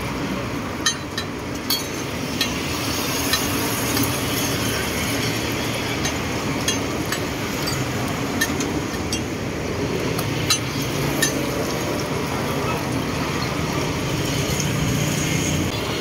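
Metal spatula clinking and scraping on a flat steel roti griddle while roti fry, a string of irregular sharp taps over a steady hiss.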